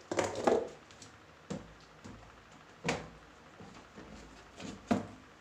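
Hard plastic panels of a plastic storage cabinet knocking and clacking together as a panel is handled and fitted into the frame: a quick cluster of knocks at the start, then single sharp clacks every second or so.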